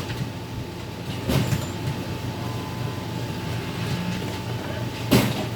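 Sharp clicks and knocks, three of them (one right away, one about a second and a half in, the loudest near the end), from wiring connectors being worked loose from an HP LaserJet M401n fuser assembly, over a steady low mechanical hum.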